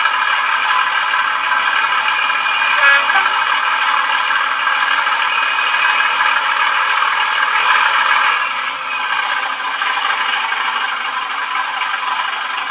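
Class 37 diesel engine sound from a LokSound v5 sound decoder, running steadily through the small speaker of an OO gauge model locomotive. It sounds thin, with no deep bass, and eases slightly about eight and a half seconds in.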